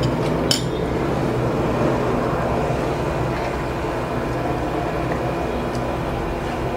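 Steady noise with a low hum from a covered pot of moong dal kadapa boiling on the stove, with one short click about half a second in.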